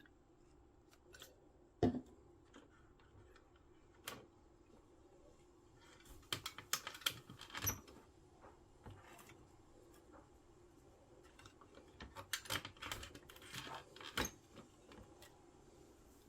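Scattered light clicks, taps and small rattles of a vintage printing calculator's plastic parts and keys being handled, bunched in two spells, about six and about twelve seconds in.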